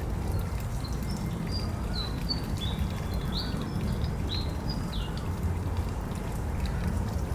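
Birds chirping: a run of short, high notes from shortly after the start until about five seconds in, over a steady low rumble of background noise.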